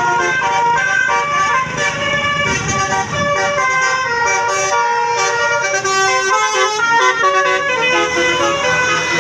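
Telolet basuri bus horn, a multi-note musical air horn, playing a melody of held notes that step up and down in pitch.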